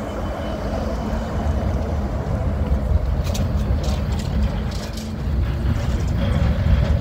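Trolleybus passing close and pulling away: a steady low rumble of tyres and electric drive with a faint hum, and a few sharp clicks about three to five seconds in.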